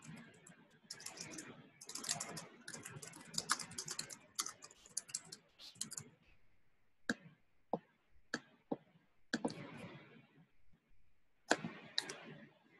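Typing on a computer keyboard: a quick run of keystrokes for about six seconds, then a handful of single clicks spaced a second or so apart as text is selected and formatting buttons are pressed.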